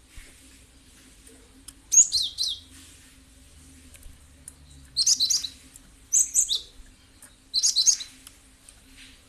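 Cinereous tit (gelatik batu) singing: four short bursts of high, quick chirping notes, one to three seconds apart.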